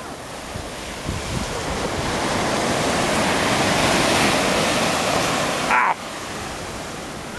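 Ocean surf washing up the beach: the rush of water swells over a few seconds and falls away sharply about six seconds in, just after a brief sharp sound.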